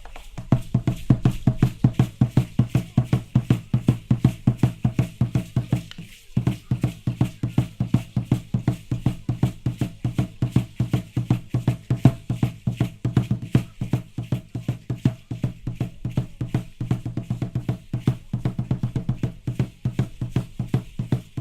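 Drum beating a fast, steady rhythm for Aztec dance (danza azteca), about four strokes a second, with a brief break about six seconds in.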